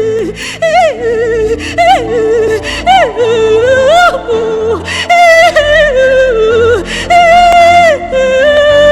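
A woman singing a wordless, sweeping worship ad-lib with wide vibrato, in several long phrases that glide up and down, over sustained instrumental backing.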